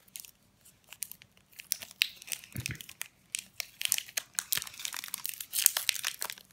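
Wrapper of a Daim chocolate bar being torn open and crinkled by hand, a fast, irregular run of crackling rustles that grows busier and louder toward the end.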